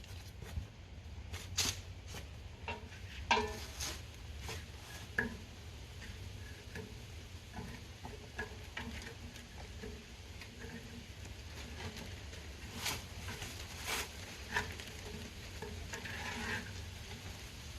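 Bonfire crackling, with scattered sharp pops, over a low steady rumble.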